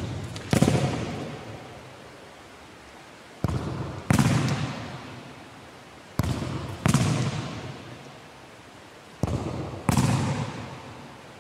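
Futsal ball kicked hard against a wall, over and over. Each thud of the kick is followed about half a second later by a louder bang as the ball strikes the wall. Both ring on with a long echo in the sports hall. The kick-and-bang pairs come about every three seconds, four bangs in all.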